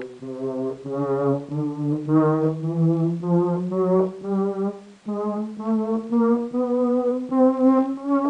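Yamaha DX7s FM synthesizer playing a single sustained patch, pulsing about three times a second while its pitch slowly rises; near halfway it drops out briefly and a new note starts and keeps climbing. Heard through a digital camera's built-in microphone.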